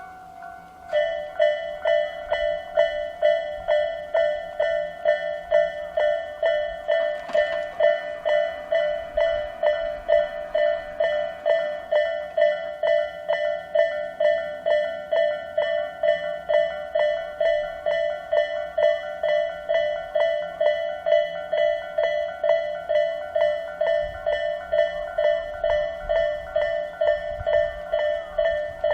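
Japanese railway level-crossing warning alarm of the Isesaki type, an electronic bell tone that alternates between two pitches and repeats about twice a second, starting about a second in. A low rumble builds near the end as a train approaches.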